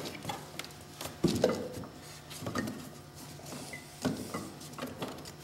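Rubber drive belt being worked by hand off a snowmobile's clutch sheaves, with several light knocks and scrapes of belt and hands against the metal clutches.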